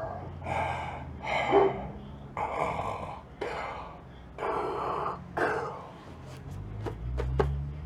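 A man doing a Darth Vader impression: heavy, rasping breaths in and out, about six in a row, each lasting most of a second. Near the end come a few sharp clicks.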